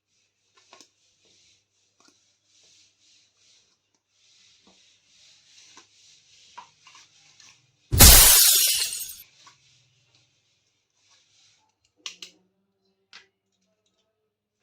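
Packaging and small toy kitchen pieces being handled. Light rustling, then a loud noisy burst about eight seconds in that lasts about a second and fades, then a few sharp small clicks.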